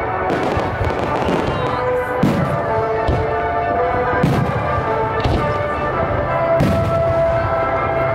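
Aerial fireworks shells bursting overhead, a sharp bang about every second, with music playing steadily underneath.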